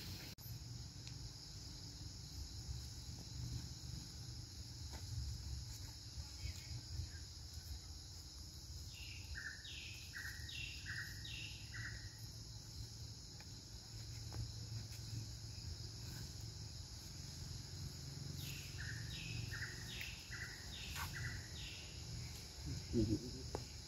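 Steady high-pitched drone of insects such as cicadas or crickets. A bird repeats a short two-note call four times about nine seconds in, and again four times near nineteen seconds.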